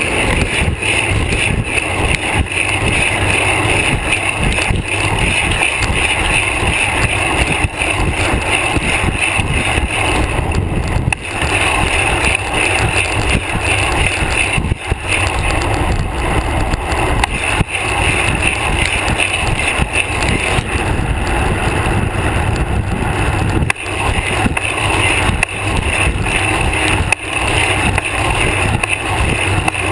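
Steady, loud road rumble and wind noise picked up by a GoPro on a bicycle seatpost while riding, with frequent small knocks and rattles from the road jolting the mount.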